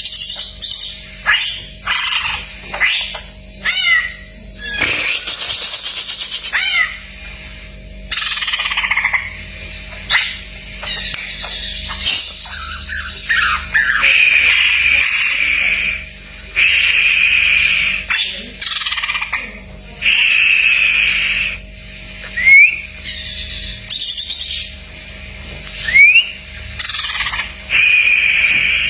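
Greater green leafbird (cucak ijo) singing a long, varied song of loud whistles, chatters and harsh buzzy phrases, with quick rising whistles twice in the second half, working in phrases copied from other birds.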